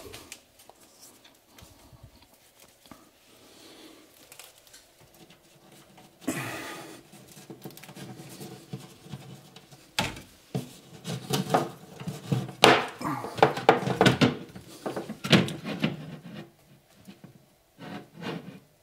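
Handling noises of an LED light fixture being fitted against a wooden cabinet: quiet at first, then scraping from about six seconds in, a sharp knock near the middle, and a run of clicks and knocks over the next few seconds.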